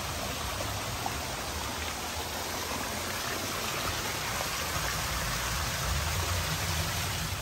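Mountain stream rushing: a steady, even noise of running water.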